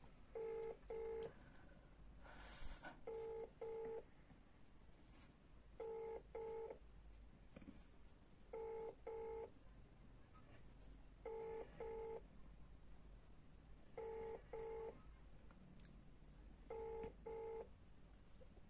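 Mobile phone ringback tone on speakerphone: a faint double beep repeating about every two and a half seconds, seven times, as an outgoing call rings at the other end.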